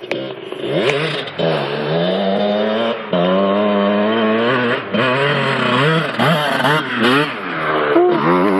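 Kawasaki KX125 two-stroke motocross bike revving up and down as it is ridden round the track, its pitch rising and falling several times as the rider opens and closes the throttle through the gears. It holds one even note for a couple of seconds midway.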